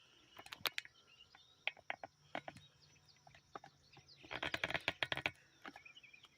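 Footsteps and rustling through garden vines and mulch: scattered crackling clicks, with a dense run of them for about a second about four seconds in. Faint bird chirps behind.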